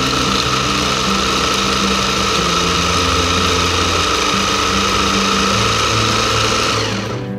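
Electric food processor motor running at full speed, its S-blade whirring through basil, garlic and cashews to make pesto, with a steady high whine. The motor cuts off near the end.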